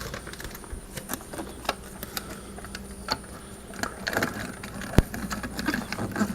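Scattered small clicks, taps and crinkles of hands working at a stove vent pipe while sealing it, with one sharp click about five seconds in.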